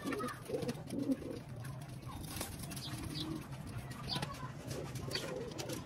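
Domestic pigeons cooing in a loft, several low coos overlapping through the whole stretch, with scattered faint clicks.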